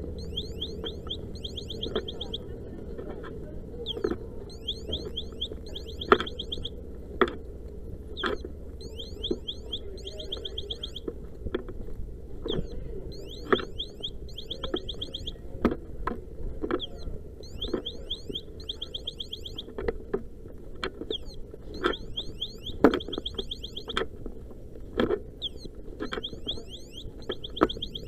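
An electronic alarm sounding in short bursts of fast, high chirps every two to three seconds, over a steady low rumble, with sharp knocks scattered throughout.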